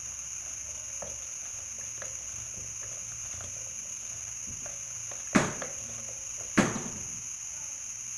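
Kitchen utensils and dishes being handled: faint scattered clicks and taps, then two sharp knocks a little over a second apart, over a steady background hiss.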